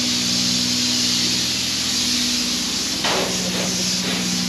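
Spray foam insulation gun spraying with a steady loud hiss, over a constant low machine hum.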